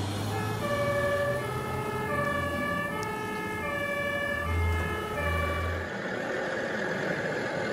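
Two-tone emergency-vehicle sirens, at least two sounding together, each stepping back and forth between a high and a low note out of step with the other, over a low drone. The sirens stop about six seconds in.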